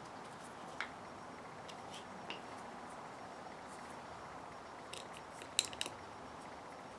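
Small sharp clicks and taps of Yamaha Warrior 350 carburetor parts being handled and fitted together: a couple of faint ones early, then a quick cluster of louder clicks about five and a half seconds in, over a faint steady hiss.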